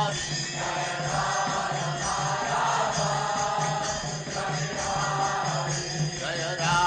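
Devotional chanting sung with musical accompaniment over a steady low drone.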